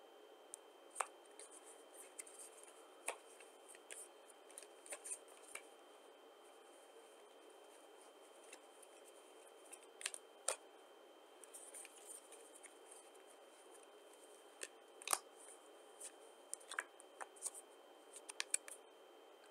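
Playing cards being handled: flicked through in the hand and laid down, giving scattered sharp snaps and clicks of card stock. The sharpest come about a second in, twice around ten seconds in and once around fifteen seconds in.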